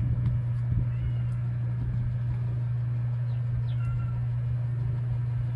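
A steady low hum, with a few faint bird-like chirps, one about a second in and a couple more around four seconds in.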